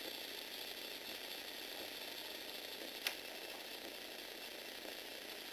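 Lego Technic motor and gear train running steadily as it folds the box's flaps shut, a continuous whirring rattle of plastic gears, with one sharp click about three seconds in.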